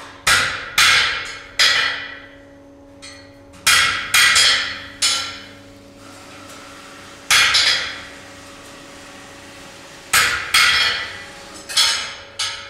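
Hand hammer striking hot steel on a steel-topped bench: about ten sharp blows in groups of two or three with short pauses, each ringing briefly.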